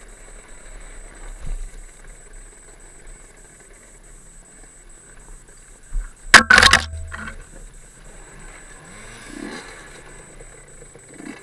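Fantic 50 Scuderia enduro motorcycle riding a rough forest trail, its engine faint and low. About six seconds in comes a loud burst of knocks and rattles.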